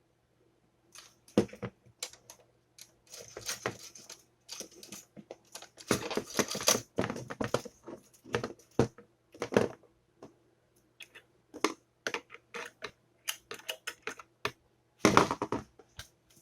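Toaster parts handled during repair: irregular clicks, knocks and short scraping rattles of its metal and plastic pieces, over a faint steady hum.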